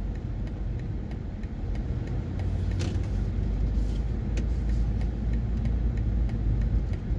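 BMW M240i's turbocharged inline-six engine and road noise heard from inside the cabin while driving, a steady low rumble that grows louder about two and a half seconds in.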